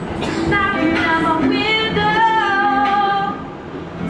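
A woman singing solo into a handheld microphone, holding long sliding notes, with a short break between phrases about three and a half seconds in.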